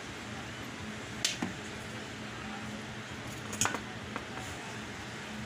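A few light clicks and taps from a porcelain lamp socket being handled and unscrewed into its two halves: a pair about a second in and a sharper cluster a little past halfway. Under them runs a steady low hum.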